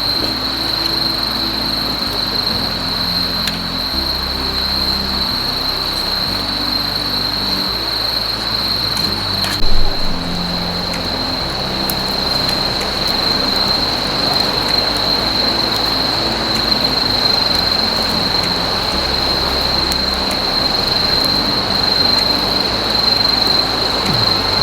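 Background music with low notes changing every second or two, over a continuous steady high-pitched whine, with one sharp knock about ten seconds in.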